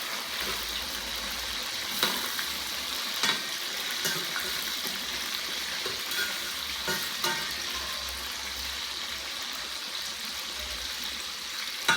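Chicken wings and yam chips frying in hot oil, a steady sizzle, with a few light knocks scattered through it.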